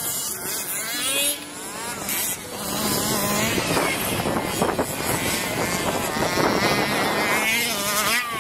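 Small two-stroke petrol engines of 1/5-scale RC cars revving up and down over and over, several at once, as the cars are driven around and jumped.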